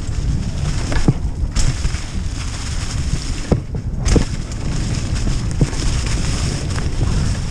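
Mountain bike rolling fast down a leaf-covered dirt trail: wind rumbling on the microphone and tyres crunching through leaves, with a few sharp knocks and rattles from the bike over bumps.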